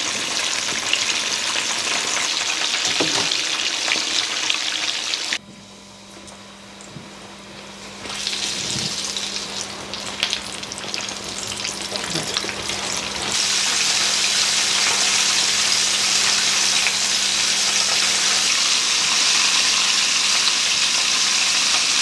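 Battered chicken leg pieces deep-frying in a pot of hot oil: a dense, steady sizzle and bubbling. About five seconds in it drops suddenly to a much quieter sizzle, then builds back to full strength over several seconds.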